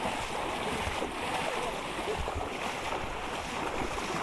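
Floodwater sloshing and splashing steadily around a person's legs as he wades through it.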